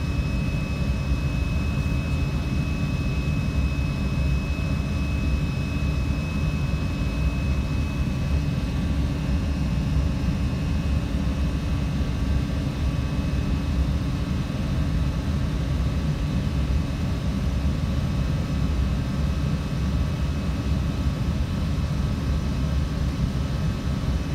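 Steady low roar of an airliner's jet engines and rushing air heard from the cockpit jumpseat during the climb after takeoff, with a thin high whine that fades out about a third of the way in.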